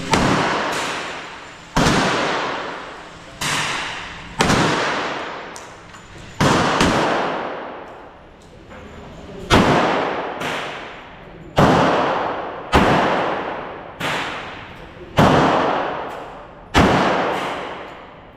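Gunshots at an indoor shooting range: about a dozen single shots fired at an uneven pace, roughly one every second or two, each with a long echoing tail off the range walls.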